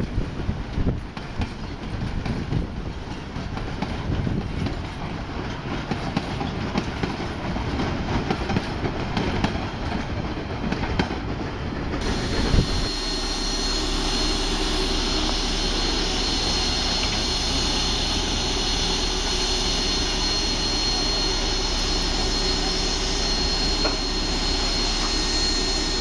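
Passenger carriages of a steam-hauled train rolling past, a low rumble with wheels clicking over the rail joints. About twelve seconds in this gives way to a steady hiss with a thin high whistle, from a steam locomotive standing with steam venting.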